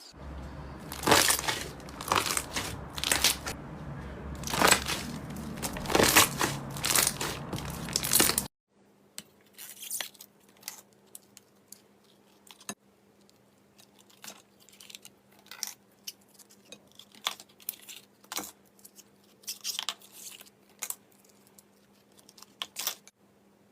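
Slime being squished and pulled by hand, crackling and popping in dense sharp clicks. About eight and a half seconds in it cuts to a quieter clip of scattered soft pops and clicks over a faint steady hum.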